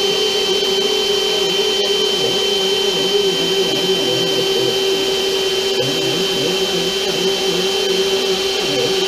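CNC router running steadily, its spindle giving a constant high whine over a steady rush of noise, while lower motor tones rise and fall as the machine moves through the cut.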